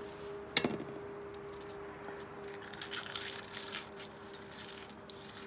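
A single sharp knock about half a second in, then irregular crinkling and crunching as gloved hands work food into aluminium pots.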